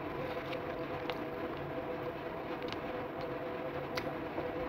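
A steady droning background hum, with a few small clicks and crunches of someone eating French fries, one bite near the end.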